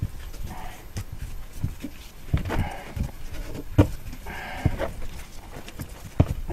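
Irregular knocks and clunks as heat wrap is wound tightly around a 2013 Subaru STI exhaust downpipe held in a bench vise, the pipe bumping against the vise and bench, with short rustles of the wrap in between. The loudest knocks come about four seconds in and near the end.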